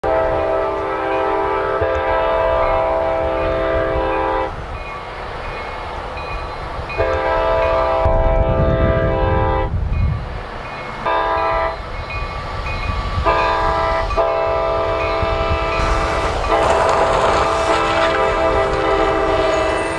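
Passenger train locomotive's multi-chime air horn sounding the grade-crossing warning as the train nears the crossing: two long blasts, a short one, then a long one held on. Near the end the noise of the passing train rises under the horn.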